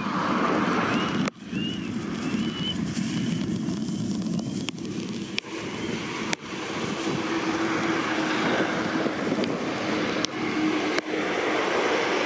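Heavy rain and gusty wind in a thunderstorm, a dense crackling hiss with wind buffeting the microphone. A steady low hum joins for a few seconds in the middle.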